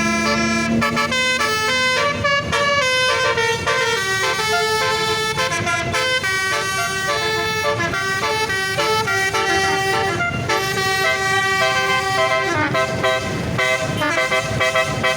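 Bus basuri telolet horn, a multi-tone melody horn, playing a running tune of short stepped notes without a break.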